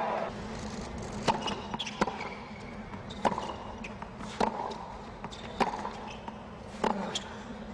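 Tennis ball bounced on a hard court by a player before serving: six sharp, separate bounces about a second apart.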